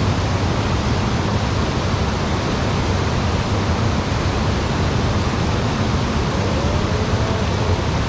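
Mountain stream water rushing, a steady even noise with no breaks.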